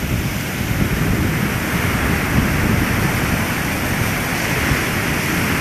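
Rough, storm-driven sea surf breaking and washing steadily, swelling a little about two seconds in, with wind buffeting the microphone as a gusty low rumble.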